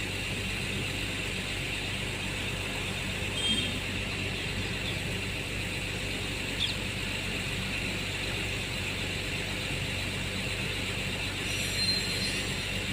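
A slow-moving freight train of BCNA covered wagons hauled by twin WAG-5 electric locomotives, giving a steady rumble with a low hum. Three short high squeaks come through, about a third of the way in, around halfway and near the end.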